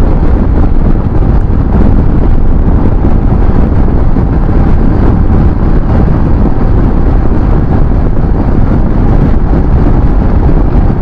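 Steady wind rush on the microphone of a motorcycle riding at road speed, mixed with engine and road noise.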